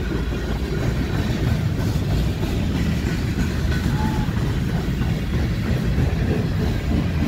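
Canadian Pacific freight train of tank cars, covered hoppers and boxcars rolling past, with a steady rumble of steel wheels on the rails.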